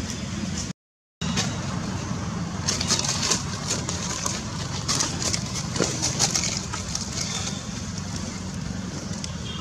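Steady outdoor background noise: a low rumble with scattered faint clicks and crackles, broken by a brief dead silence about a second in.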